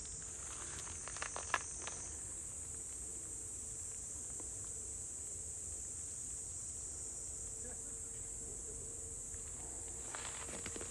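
Steady high-pitched chirring of insects, with a few faint taps in the first two seconds.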